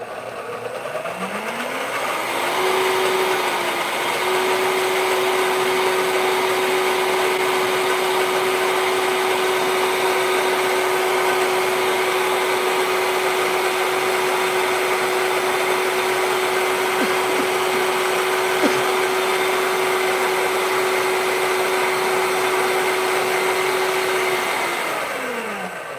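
High-powered countertop blender purées warm scrambled eggs with cream and beef broth. The motor winds up in pitch over the first couple of seconds as the speed dial is turned from low to high, runs with a steady whine, then spins down near the end.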